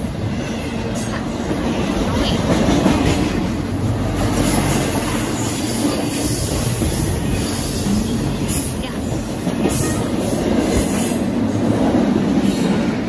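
Intermodal freight train's cars, carrying trailers and containers, rolling past close by: a steady rumble of steel wheels on the rails.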